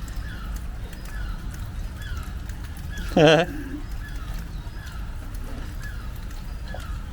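Birds calling: a short falling chirp repeated about once a second, and one loud, brief, wavering call about three seconds in.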